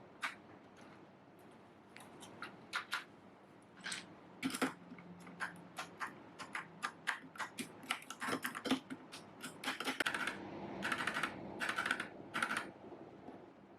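Typing on a mechanical keyboard fitted with XDA-profile PBT keycaps: irregular key clacks, turning into faster runs of keystrokes in the second half.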